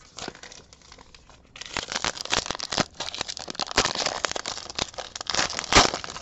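Foil wrapper of a 2017 Diamond Kings baseball card pack crinkling as it is torn open by hand, a dense crackle that starts about a second and a half in.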